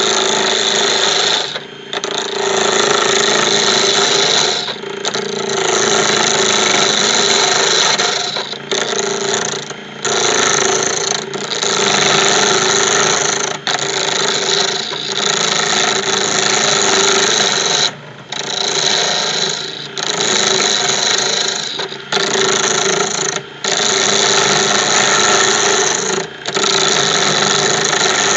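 Wood lathe spinning an Ipe pen blank while a turning tool cuts it: a steady motor hum under a loud cutting noise, broken by brief dips every few seconds as the tool comes off the wood.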